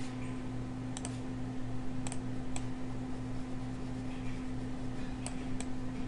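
A handful of short, sharp clicks at a computer, spaced irregularly over a few seconds, over a steady low electrical hum.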